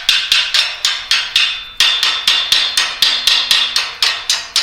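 Rapid hammer blows on steel, about four to five strikes a second, each with a brief metallic ring. There is a short pause just before two seconds in, then the hammering resumes.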